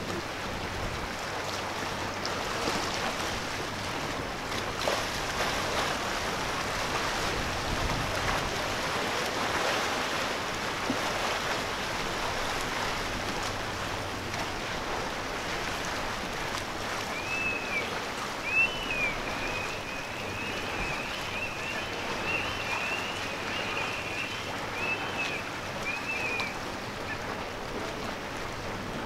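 Steady rush of water and waves in a harbour, with some wind. About two-thirds of the way through comes a run of short, high chirps lasting several seconds.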